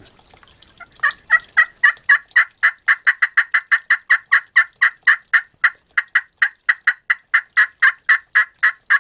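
Slate-over-glass pot turkey call played with a corn cob striker. About a second in it starts a long, even run of short, rasping hen-turkey notes, about four a second.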